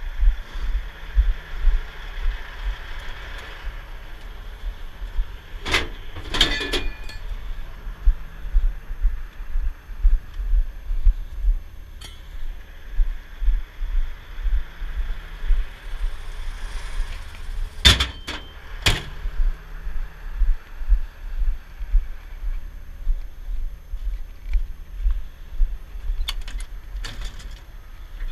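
Uneven low rumbling and thumps, as of wind buffeting the microphone over a running heavy wrecker. Pairs of sharp metal clacks come about six seconds in, around eighteen seconds in and near the end.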